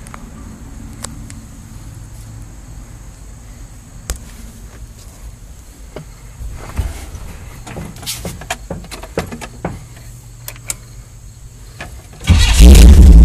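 Scattered light clicks and knocks inside a Toyota 4Runner's cab. Near the end the 4Runner's engine is started with the key and runs loudly.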